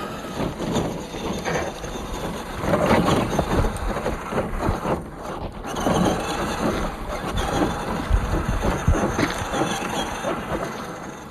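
1:10 scale RC crawler van driving over rough trail ground: irregular crunching, knocking and clattering of tyres and chassis on rock and dirt.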